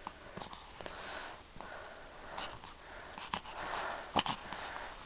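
A puppy sniffing and snuffling in short breathy bursts while it plays on its back, with rustling of the blanket under it and a sharp click about four seconds in.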